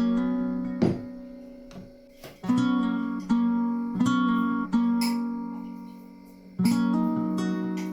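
Background music: an acoustic guitar strumming chords, each struck and left to ring down, with no singing.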